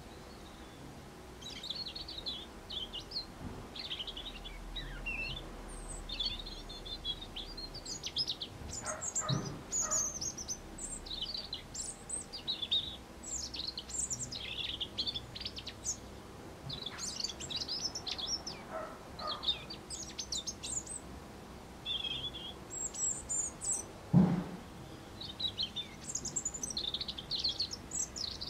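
European robin singing: a long run of short, high, warbling phrases with brief pauses between them. A few short, lower sounds break in, the loudest about three-quarters of the way through.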